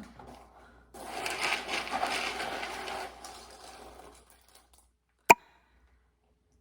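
Hands rummaging through dried beans in a bin, a rattling, pattering rush lasting about three seconds. One sharp click follows about five seconds in.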